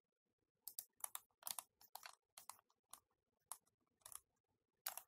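About a dozen light, irregular clicks and taps from the drawing input, a mouse or stylus, while the on-screen whiteboard is erased, each one short and sharp over near silence.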